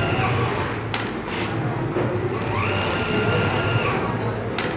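Jack computerized pattern sewing machine (1200×800 sewing area) running and stitching automatically through pieces held in a clear template. Under a steady hum there is a whine that rises, holds and falls again as the head moves, with a sharp click about a second in and another near the end.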